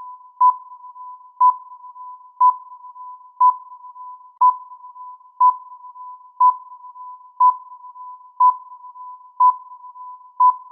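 Countdown timer beeping once a second: a short, sharp beep at one mid pitch, eleven times, over a fainter steady tone at the same pitch between the beeps.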